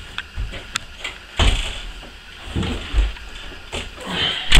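A few dull knocks and thumps, with a wooden interior door being grabbed and knocked; the loudest bang comes near the end.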